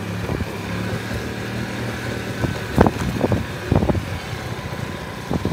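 Small motorbike engine running steadily at low revs while riding, with a few short thumps about halfway through.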